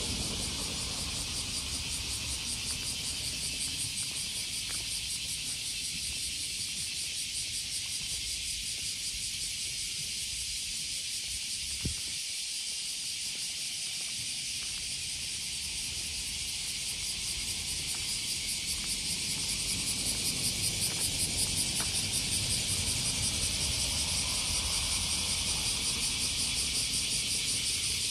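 A chorus of cicadas buzzing steadily in a dense, high, shrill drone that swells and pulses rapidly about three-quarters of the way through. A single sharp click sounds near the middle.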